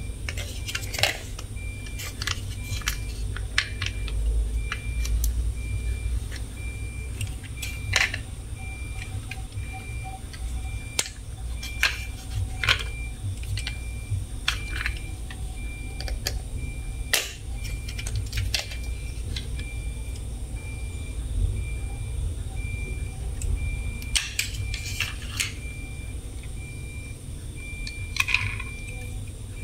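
Plastic toy vehicles and parts being handled: irregular clicks, taps and knocks of hard plastic, over a low handling rumble. A faint high tone pulses evenly in the background.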